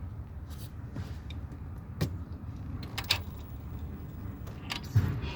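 Scattered sharp clicks and light knocks, about eight in all, over a steady low rumble, with no running motor heard.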